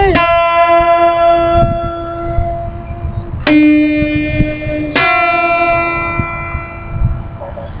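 Acoustic guitar played as a slow instrumental passage: single notes that ring out and fade, each held for a second or more. A new note is struck about three and a half seconds in and another about five seconds in, and the ringing dies away near the end.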